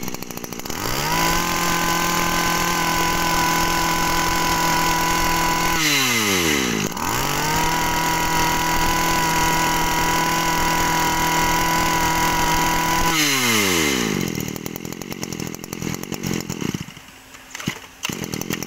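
Stihl FS 2100 brush cutter's small two-stroke engine, about 22cc, revved up to a steady high speed. It is throttled back briefly about six seconds in and revved again, then drops to idle near the end.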